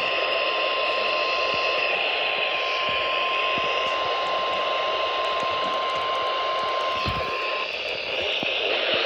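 NOAA Weather Radio 1050 Hz warning alarm tone, the signal that a weather warning is about to be broadcast. It is one steady high tone over radio static and cuts off near the end, leaving only the hiss.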